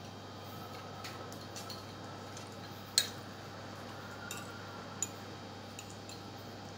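Cutlery clinking against plates while eating: a few scattered sharp clicks, the loudest about three seconds in and another about two seconds later, over a faint steady low hum.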